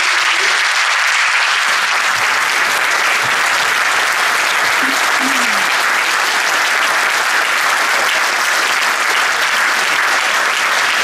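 Audience applauding: a long, steady round of clapping from a roomful of people.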